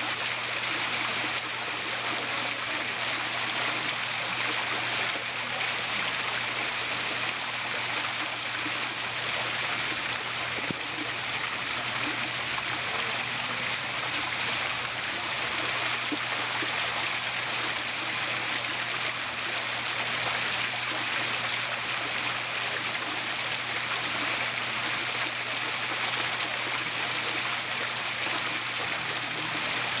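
Small rock waterfall pouring into a koi pond: a steady, even rush of falling water, with a low steady hum underneath.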